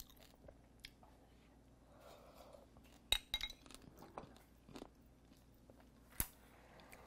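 Quiet crunchy chewing of pickled cà pháo, the small crisp Vietnamese eggplants, with a few sharp clicks along the way.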